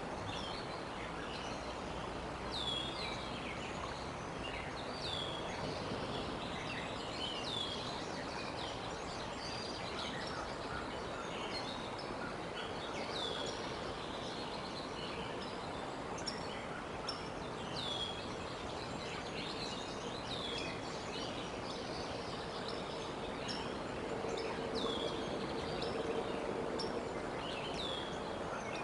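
Outdoor ambience at a treetop nest: a bird repeating a short, high, falling call about every one to two seconds over a steady background hiss. A faint steady hum joins near the end.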